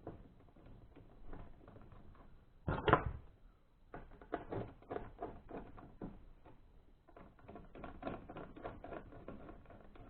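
Irregular small clicks and taps of hands working on a metal detector's plastic control box and aluminum shaft, with one louder knock about three seconds in.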